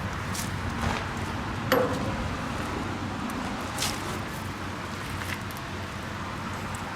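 A few short metallic clinks and knocks of hand tools on the tractor's rear axle hardware, one of them ringing briefly, over a steady low hum.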